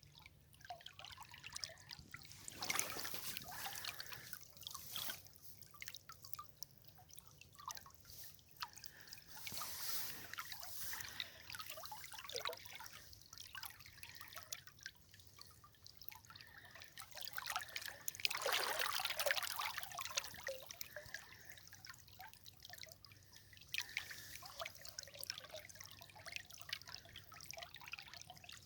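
River water trickling and dripping in an uneven patter, with louder swells of splashing about 3, 10 and 19 seconds in.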